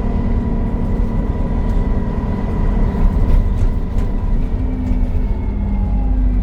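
Alexander Dennis Enviro 400 Trident bus running, its cooling fan giving a steady whine over a low engine rumble; the whine eases slightly lower in pitch about four seconds in.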